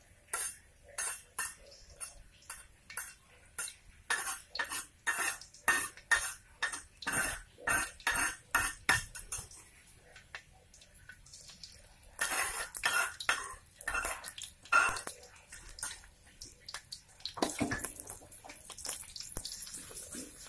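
Metal spoon knocking and scraping against a spice-paste bowl, about two sharp strikes a second for the first ten seconds. After a short pause come denser bursts of clatter and scraping of a utensil in a wok.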